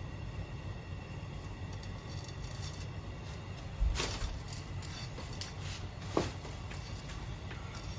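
A few knocks and clicks from kitchen utensils or containers being handled, the loudest with a dull thump about four seconds in and another about six seconds in, over a steady low hum.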